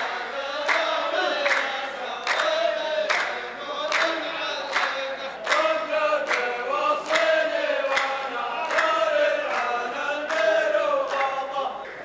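A row of men chanting in unison, keeping a steady beat of hand claps a little more than once a second. This is the chorus line of a Saudi sung poetry duel (muhawara), chanting the poet's verse back.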